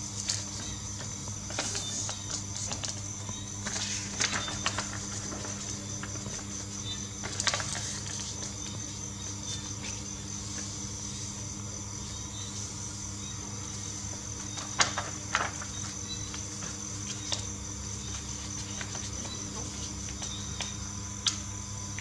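A square sheet of origami paper being handled and creased by hand: short, crisp rustles and strokes now and then, the sharpest about fifteen seconds in. Under it runs a steady high pulsing trill and a low electrical hum.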